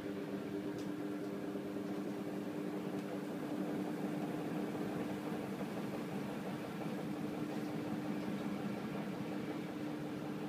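Samsung washing machine spinning its drum: a steady motor hum over the whirr of the turning load.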